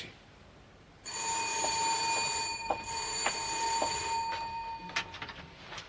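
Electric doorbell ringing in two long rings with a short break between them. Light regular knocks come about twice a second under the ringing, and a few clicks follow it near the end.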